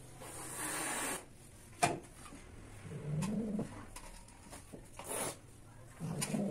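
Cat in heat giving low, short moaning calls twice, with rustling noises and a single click between them.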